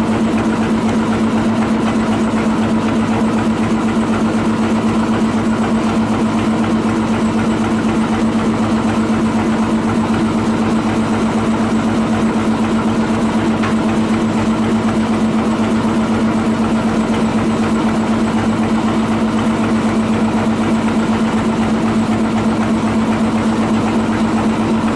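Boat engine running steadily, a constant drone with an even pitch.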